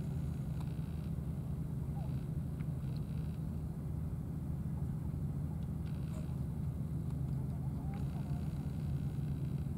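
A steady low mechanical hum at an even level, with a few faint short chirps and clicks over it.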